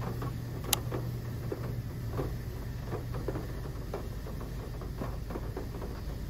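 A steady low hum, like a running motor or engine, with scattered light clicks and taps over it.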